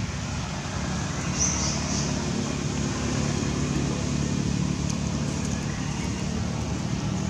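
Steady low rumble of road traffic, with a short high-pitched chirp about a second and a half in.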